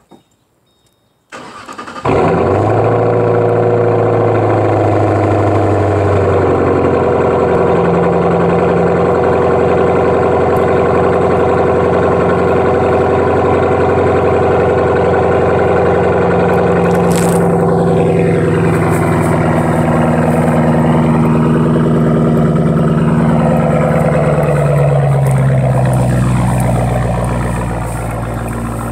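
Ford Mustang GT's V8 cold-started: the starter cranks briefly about a second in, then the engine catches and settles into a loud, fast cold idle heard at the exhaust. Near the end the idle speed drops a little and the sound gets slightly quieter.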